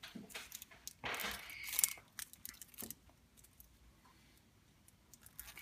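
Wrapping being peeled and torn off a surprise egg by hand: scattered crackles and clicks, with one longer crinkling rustle about a second in, then little sound for the last couple of seconds.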